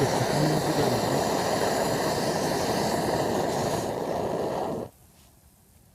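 Camp stove burner running with a steady, loud rushing hiss that cuts off suddenly about five seconds in.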